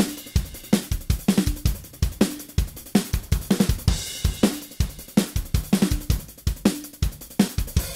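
Raw multitrack recording of a rock drum kit played back without effects: kick, snare, hi-hat and cymbals in a steady driving pop-punk beat. The third mono room mic is brought in, adding roomy slap to the kick.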